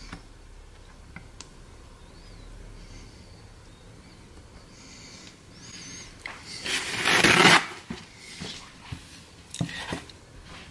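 A spoon spreading thick caramel topping over a cheesecake in a foil pie pan: soft scrapes and small clicks, with one louder scraping noise lasting about a second, around seven seconds in.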